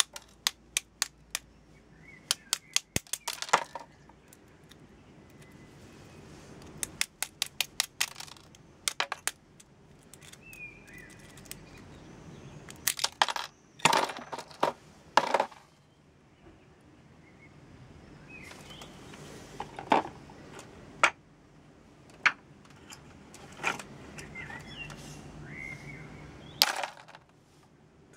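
Small metal pendant fittings and resin pendants clicking and tapping as they are handled and dropped into a cardboard box. Quick runs of light clicks come near the start and again about seven seconds in, then scattered single taps.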